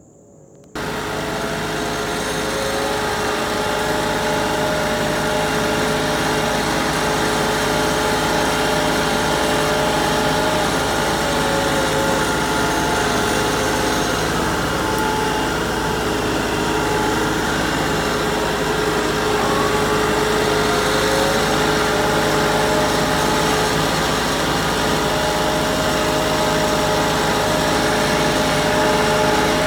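LS XR3135 tractor's diesel engine running at a steady speed, with a few slow rises and falls in pitch.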